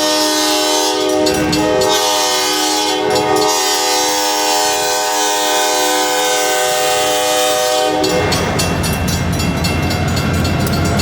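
Locomotive horn held in one long, steady blast that cuts off about eight seconds in. Then comes the rumble of the departing train, with rapid clicking of its wheels on the rails.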